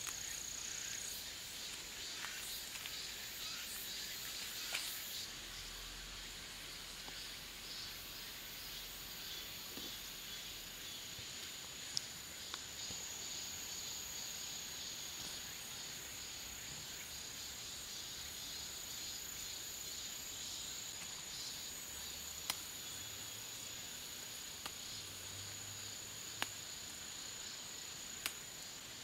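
Insects chirring steadily in the garden, a high thin tone over a hiss of more insects, with a few sharp clicks.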